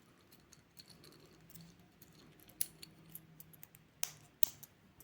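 Faint, scattered clicks and light clinks of a stainless steel watch bracelet with hollow links being handled. A few sharper clicks come past the middle.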